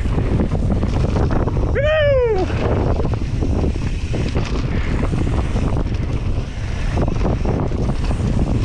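Wind rushing over the microphone and the rumble of a mountain bike's tyres on a dirt trail at speed. About two seconds in comes a short high-pitched tone that rises and then falls.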